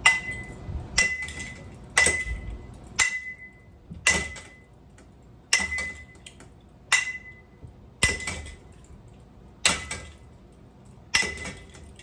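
Ceiling fan being struck hard and repeatedly, about ten blows roughly a second apart, each leaving a short metallic ring.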